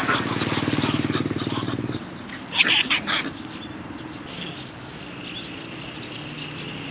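A small motor scooter's engine running as it rides past, stopping abruptly about two seconds in. Then a brief burst of shrill sound, followed by a faint steady high whine.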